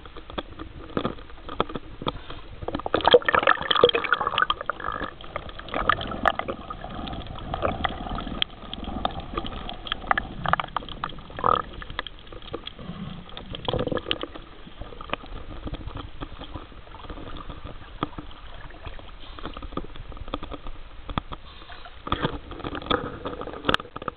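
Seawater splashing and gurgling around a swimmer's camera as it dips below the surface and comes back up, with many short knocks and splashes, most of them in the first half.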